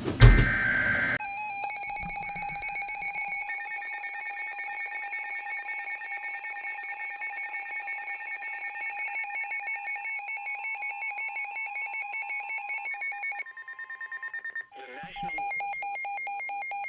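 Emergency Alert System alert on weather radio receivers: a short burst of digital header data at the start, then the steady, piercing attention tone. A second, higher steady tone from another receiver joins about ten seconds in and stops near fifteen seconds. These tones announce that a warning message follows.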